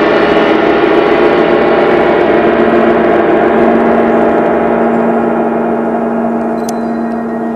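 Large suspended gongs being played, a dense, sustained shimmer of many overlapping ringing tones. About halfway through the high overtones fade and the wash dies down slowly, leaving one steady low hum.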